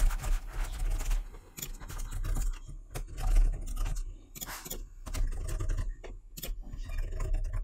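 Typing on a computer keyboard: irregular runs of keystrokes over a steady low hum.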